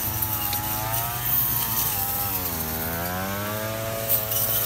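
Several grass brush cutters running while they cut. One engine's pitch sags and rises again over a couple of seconds, over the steady hum of the others.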